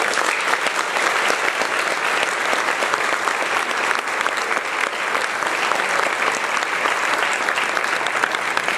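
An audience applauding: many people clapping in a dense, steady round.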